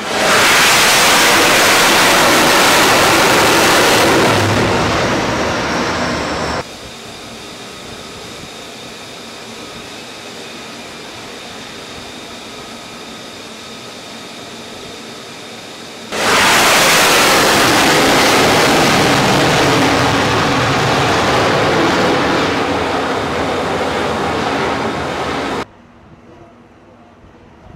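Loud jet engine roar from an F-35C fighter flying around the carrier, in two long stretches that each cut off suddenly. Between them is a quieter steady rushing with a faint high whine.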